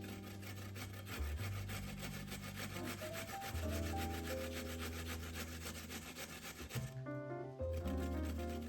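Music with held bass and melody notes over a fast, even scratchy rhythm of many strokes a second, which breaks off briefly near the end.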